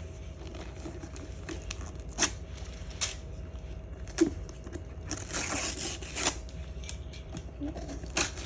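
Gift wrapping paper being torn and crinkled as a present is unwrapped, with a few sharp snaps; the longest stretch of tearing comes about five seconds in and lasts about a second.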